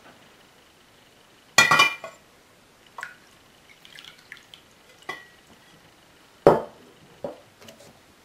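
Clinks and knocks of a steel jug being handled and set down on a hard surface: a loud ringing clink about one and a half seconds in, a few lighter taps, and a heavy knock about six and a half seconds in.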